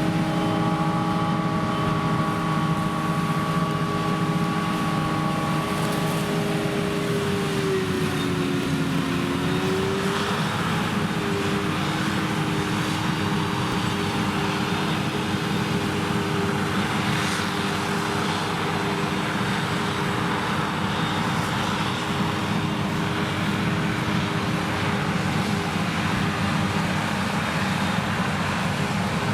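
Krone BiG X 1100 forage harvester's Liebherr V12 engine working under heavy load while chopping triticale: a steady, loud drone with a hum of several tones. The pitch sags briefly about eight seconds in and recovers about two seconds later.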